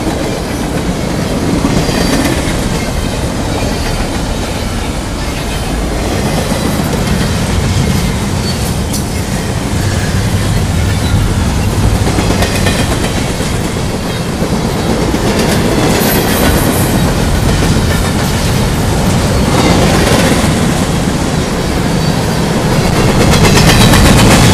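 Empty double-stack intermodal well cars of a freight train rolling past close by: steady wheel-on-rail noise with clickety-clack over the rail joints, growing louder near the end.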